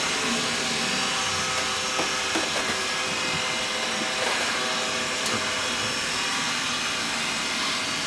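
Xiaomi Mi Robot Vacuum running: a steady whirr of its suction fan and brushes with a few faint steady tones, as it moves along the wall edge.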